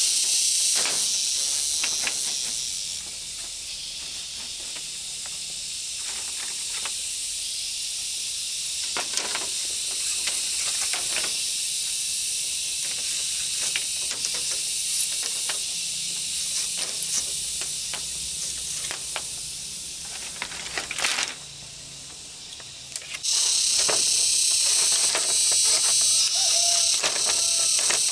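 A dense, high insect chorus, such as cicadas or crickets, steady with a break a little after twenty seconds, with scattered light knocks and taps.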